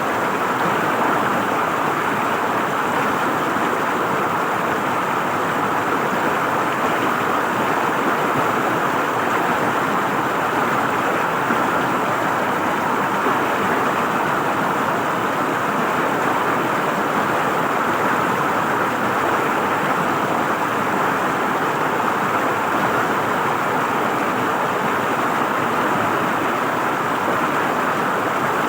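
River water flowing and gurgling over rocks, a steady rush with no change in level.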